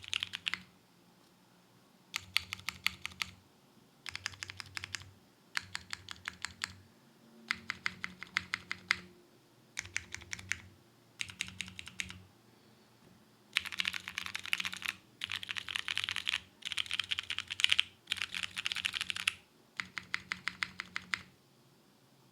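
Mechanical keyboard typing on a TGR Jane V2 with lubed vintage Cherry MX Brown tactile switches on a polypropylene full plate, under GMK keycaps. Quick keystrokes come in short bursts with brief pauses, and there are longer unbroken runs of typing over the second half.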